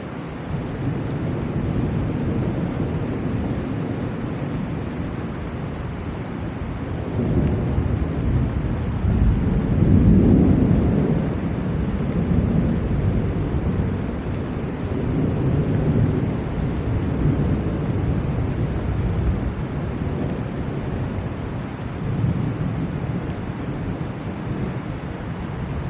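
Steady rain falling, with rolling thunder that builds about seven seconds in, is loudest around ten seconds, then rumbles on in weaker swells.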